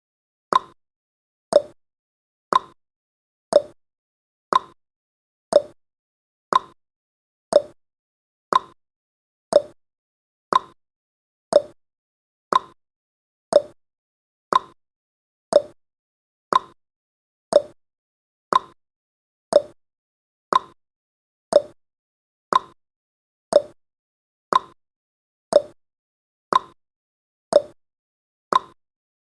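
Countdown timer's clock tick sound effect: one short, sharp tick every second, in a steady rhythm.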